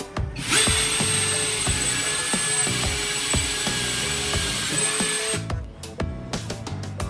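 An electric power tool runs for about five seconds with a steady high whine, starting about half a second in and stopping abruptly, over background music.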